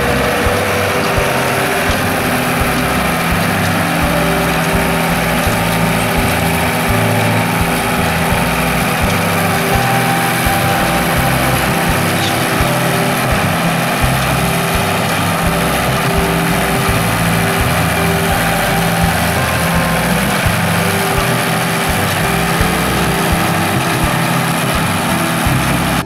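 Diesel tractor engine running steadily under load as it pulls a small square baler through hay, with the baler's pick-up and plunger mechanism working.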